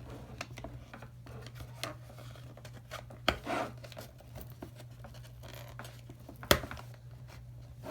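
Camera-box packaging being pulled and worked loose by hand: scattered scratching and small clicks, a sharp snap about three seconds in, and a louder snap about six and a half seconds in as part of the packaging rips.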